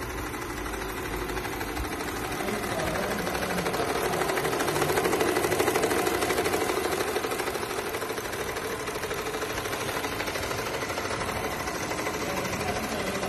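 Electric domestic sewing machine running, its needle stitching through fabric with a fast, even rattle that grows louder around the middle.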